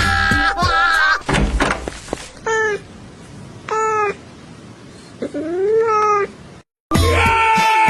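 A cat meowing three times, the last meow longer, rising then falling; a thud comes just before the first meow. Music plays at the start and comes back near the end.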